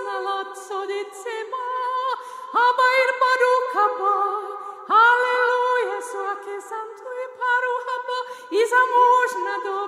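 Women's voices singing unaccompanied in harmony, long held phrases that each open with a swoop up in pitch, in the free wordless style of singing in the Spirit.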